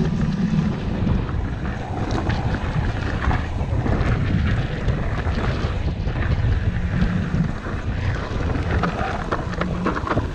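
Mountain bike riding fast over dirt singletrack, heard from a handlebar camera: wind buffeting the microphone over tyre rumble, with scattered rattles and clicks from the bike over rough ground.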